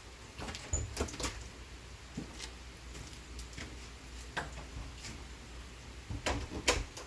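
A door being opened and shut, with a few scattered knocks and clicks, over a steady hiss of rain.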